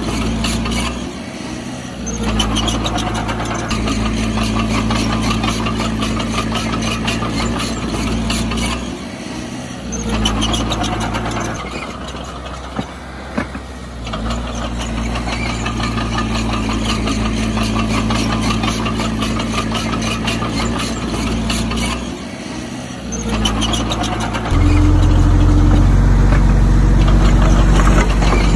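Heavy diesel engine of earthmoving machinery running steadily, dropping away briefly a few times, with a louder, deeper engine sound coming in near the end.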